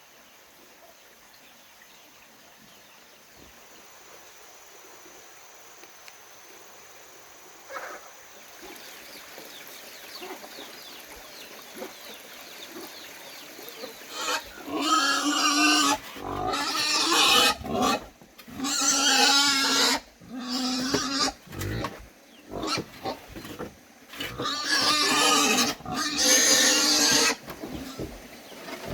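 An animal squealing loudly and repeatedly, each squeal lasting one to two seconds, starting about halfway in after a quiet stretch.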